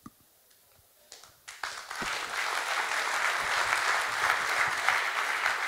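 Audience applauding: a few single claps, then the room breaks into steady applause about a second and a half in.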